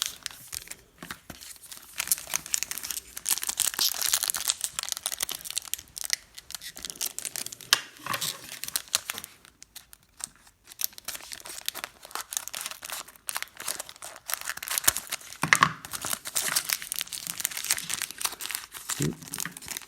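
Plastic and foil trading-card pack wrappers crinkling and tearing as packs are ripped open and handled, in irregular bouts, with a quieter pause a little before halfway.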